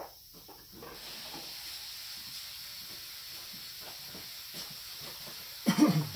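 Aerosol brake cleaner spraying in a steady hiss for about five seconds, sent through a carburetor's fuel assist port to check that it is clear. There are a few light clicks at the start and a short, louder sound near the end.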